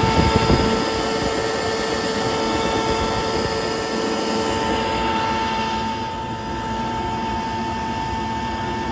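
Atlas Copco GA11 rotary screw air compressor running steadily, its electric motor and belt-driven screw element giving a steady whine over an even rushing noise.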